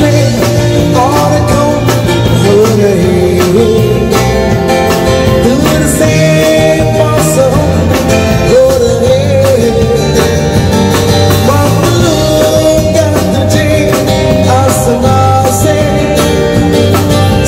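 Live busking band playing a song: a man singing through a PA over an amplified acoustic guitar, electric guitar and a drum kit keeping a steady beat.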